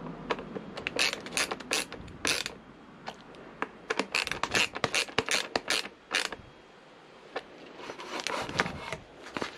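Ratchet screwdriver clicking in quick irregular runs as a fly screen's mounting bolts are tightened by hand. The clicks come mainly in two runs, with a few scattered ones near the end.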